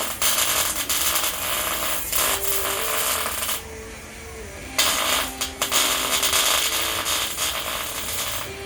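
Welding arc crackling in two long runs, with a break of about a second between them, over background music.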